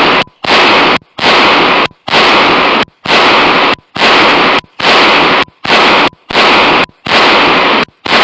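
Walther PPQ pistol fired shot after shot, about ten shots at roughly one a second. Each shot is very loud and swamps the microphone, its echo running on almost to the next shot.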